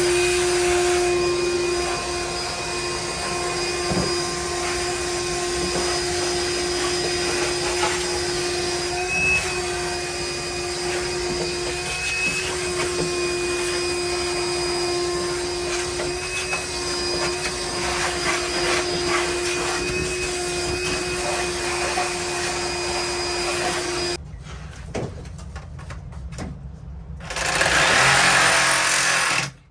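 Shop vacuum running with a steady motor whine, then switched off about 24 seconds in; a short burst of noise follows near the end.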